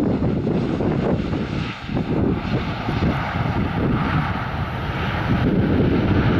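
Boeing 737 jet engines during the landing roll after touchdown: a steady jet roar with a thin steady whine, the higher part swelling in the second half.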